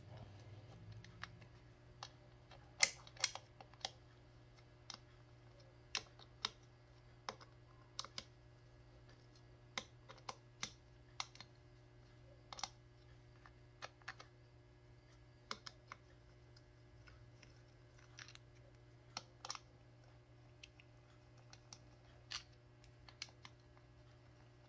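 Scattered sharp metallic clicks and taps as a socket on an extension is worked on the clutch pressure-plate bolts of a Honda Gold Wing GL1200 engine, loosening them. A steady low hum sits under the clicks.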